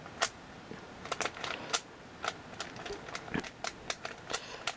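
3x3 Rubik's cube being scrambled by hand: quick, irregular plastic clicks of its layers turning.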